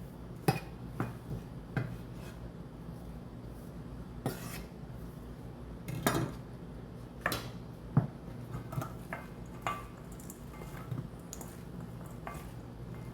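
Kitchen utensils and dishes clinking and tapping in scattered knocks while ingredients are handled, the loudest clinks coming about six to eight seconds in, over a steady low hum.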